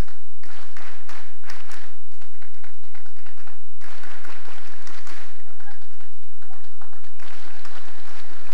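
Audience clapping: many hands striking in a dense patter that breaks off briefly about four seconds in, then resumes.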